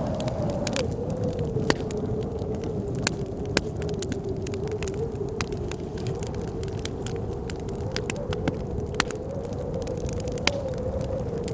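A wood fire crackling, with sharp pops scattered irregularly, over the steady low rumble of blizzard wind whose howl wavers slightly in pitch.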